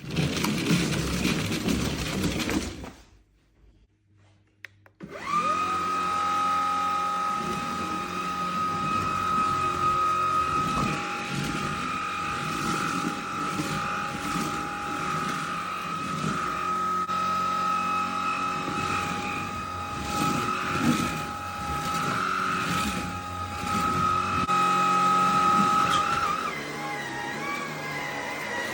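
Vax HomePro Plus cordless stick vacuum cleaner's motor: a short burst of running, a pause, then it spins up with a rising whine about five seconds in and runs steadily with a high whine and airflow rush. Near the end the pitch of the whine changes.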